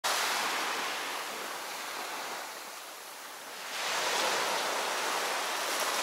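Small waves breaking and washing up onto a sandy beach: a steady hiss of surf that ebbs towards the middle and swells again a little after halfway.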